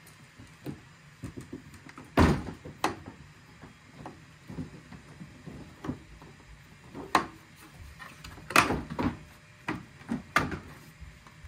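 Mazda 6 plastic front bumper cover knocking and clicking as it is handled and pushed back into place around the new headlights: a string of sharp plastic knocks, loudest about two seconds in and again a little past the middle.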